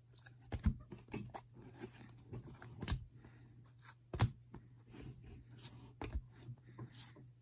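Trading cards handled and flipped through by hand: scattered light clicks and rustles as cards slide against each other off the stack, with a sharper click about four seconds in.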